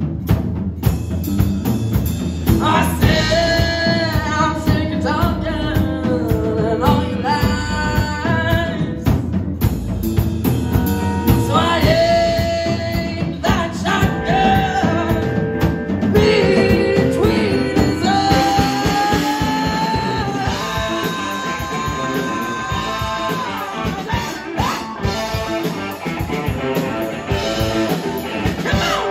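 A live rock band playing: a woman singing over electric guitars and a drum kit, her lines coming in phrases with short breaks between them.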